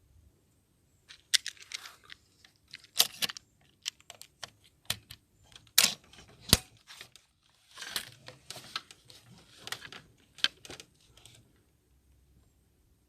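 Irregular handling noise: a run of sharp clicks and knocks mixed with rustling, starting about a second in and stopping near the end.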